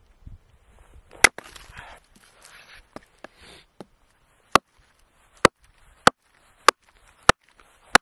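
Small axe chopping dry birch wood: one hard strike about a second in, followed by a brief rustle and crackle. From about halfway, a steady series of about six sharp chops roughly every 0.6 s as a short birch piece is split.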